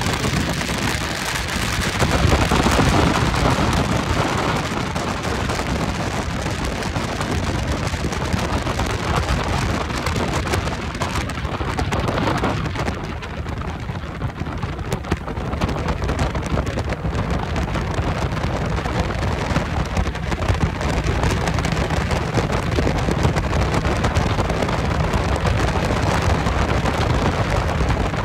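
Rushing wind and water noise aboard a bass boat running at high speed, with air buffeting the microphone and the outboard motor's low rumble underneath.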